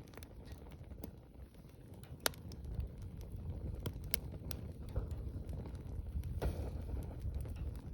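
Wood fire burning, with a low rumble of flames and scattered sharp crackles and pops; one loud pop about two seconds in.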